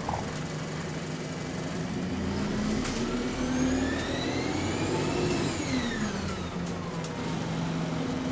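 Alexander Dennis Enviro400 MMC bus heard from on board: the engine and its turbocharger whine rise steadily in pitch as the bus accelerates, peak about five seconds in, then fall away as it eases off.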